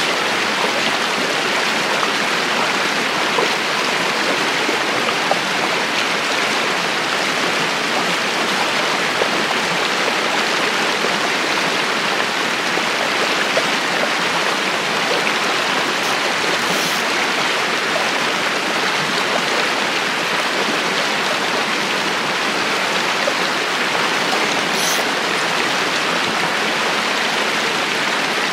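Mountain stream rushing over rocks and small cascades: a steady, close rush of running water.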